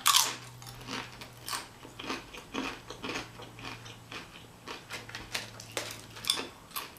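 Close-up chewing and mouth sounds of someone eating a burrito bowl: irregular soft clicks and smacks, with a faint steady low hum underneath.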